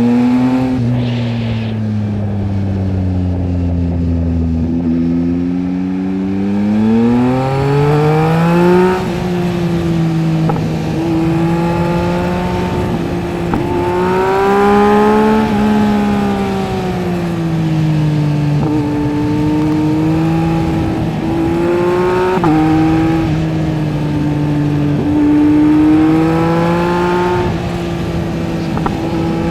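Yamaha MT-09 SP inline-triple engine through a LeoVince LV Race exhaust while riding. The revs fall for the first few seconds, then climb and drop again and again, with sudden pitch steps at the gear changes.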